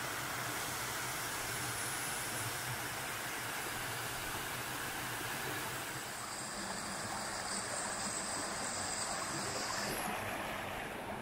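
Steady rush of flowing river water. Its tone shifts slightly about six seconds in and again about ten seconds in.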